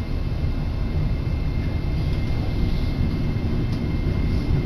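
Steady low rumble of a Keihan Katano Line commuter train running between stations, heard from inside the passenger car, with a faint thin high tone held over it from about two seconds in.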